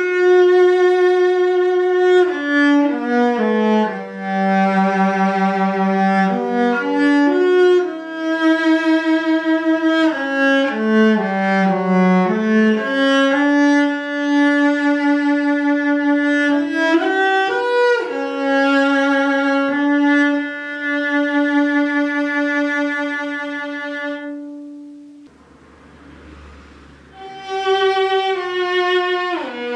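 Solo cello bowed in a slow melody of sustained notes, played on a Korean-made cello about ten years old. A long final note fades away, and after a short pause a second cello, a German instrument about 200 years old, begins playing near the end.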